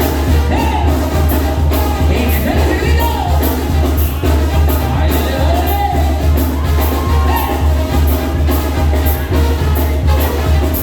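Loud Latin dance music with a heavy, steady bass and a fast, even beat, a melody line gliding over it.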